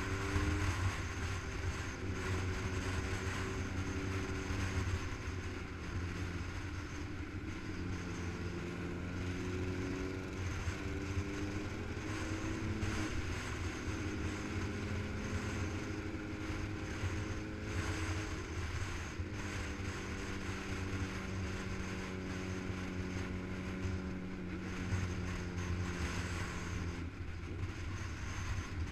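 Motorcycle engine running at road speed, its note stepping up and down in pitch a few times as the revs change, under a steady rumble of wind on the microphone.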